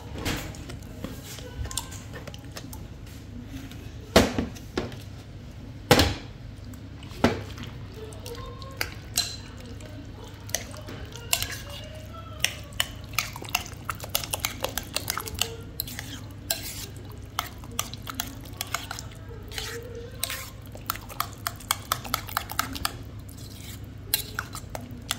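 Spoon clinking and scraping against the bowl while stirring thick yogurt and diced cucumber together. A few louder knocks come between about four and seven seconds in, and the second half has quick, frequent clinks.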